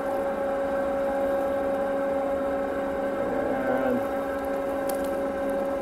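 Locomotive fuel priming pump running with a steady electric hum while it fills the diesel's fuel system ahead of cranking.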